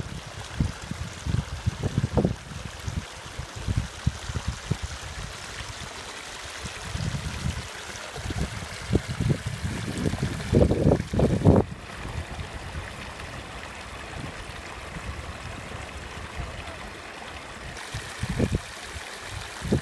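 A small stream trickling and splashing over rocks, steady throughout. Under it, low rumbling buffets of wind on the microphone come and go, heaviest a little past the middle.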